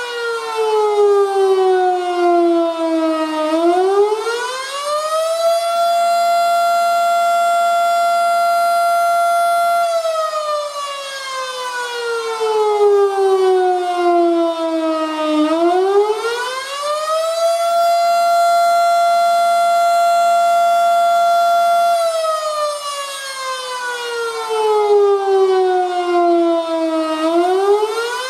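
Federal Signal Model 5 outdoor warning siren sounding the attack signal, a rising and falling wail. The tone holds at its top pitch for about four seconds, sinks slowly for about five, then climbs quickly back up, about once every twelve seconds.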